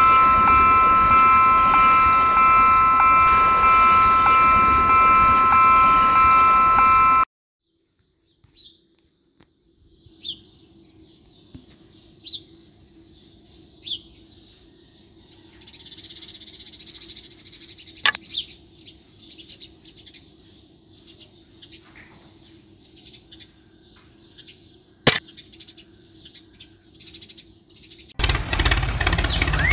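A loud steady chord of high tones over a hiss, pulsing about twice a second, cuts off abruptly about seven seconds in. Then small birds chirp now and then over a faint low hum, with two sharp clicks, and near the end a loud burst of rushing noise.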